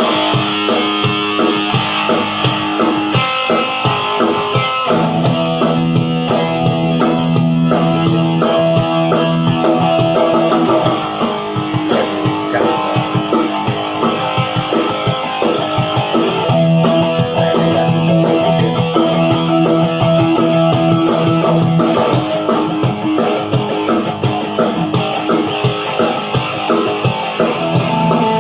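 Electric guitar played through a Line 6 Spider V30 amp on a rock tone: a steady run of notes and chords, with low notes held for several seconds at a time.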